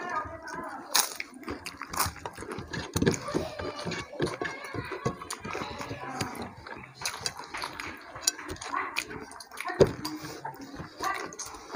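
Eating sounds from people eating rice and curry by hand: wet chewing and lip-smacking, with fingers mixing rice on plates, as many small irregular clicks and smacks and one sharper click about ten seconds in.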